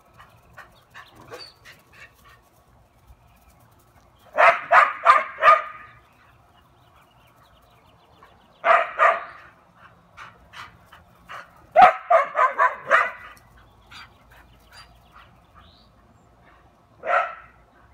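Australian cattle dog (blue heeler) barking in short volleys: a quick run of four barks, then a pair, then a longer run of about six, then a single bark near the end, with fainter yips in between.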